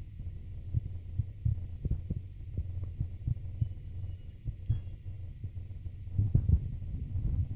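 Low, muffled thumps repeating about one and a half to two times a second over a steady low hum.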